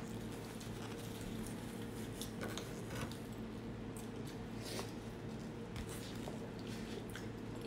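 Close-miked eating sounds: sticky braised meat on the bone being torn apart by hand, with scattered small wet clicks and crackles, a few louder ones about three and five seconds in.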